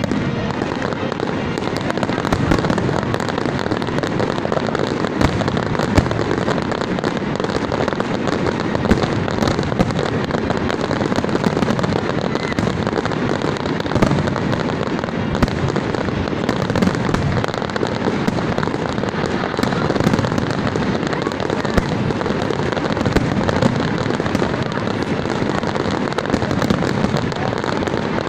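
Large fireworks display going off without pause: a dense, continuous crackle and rumble of bursting shells, with sharp individual bangs standing out every second or so.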